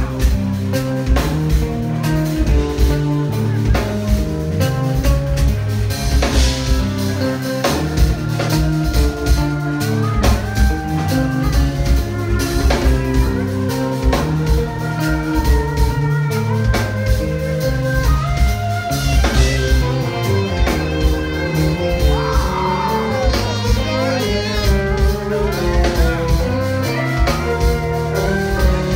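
A jazz-fusion band playing live: electric bass, electric guitar and keyboards over a steady drum-kit beat.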